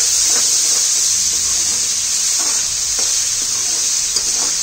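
Chopped onions and tomatoes frying in oil in an aluminium kadai: a steady sizzle, with a metal spoon scraping the pan now and then as the masala is stirred.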